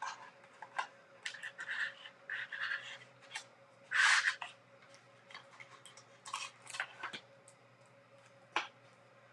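Trading cards and a small cardboard slide-out box being handled on a table: scattered light clicks, scrapes and rustles, the loudest a short scrape about four seconds in, over a faint steady hum.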